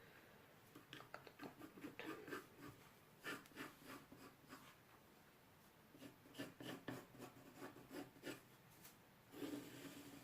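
Faint drawing on paper: a pen or pencil tracing a stocking outline, heard as groups of short strokes with pauses between them.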